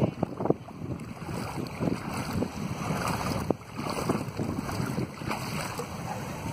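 Wind buffeting the microphone in uneven gusts over small waves lapping in shallow sea water.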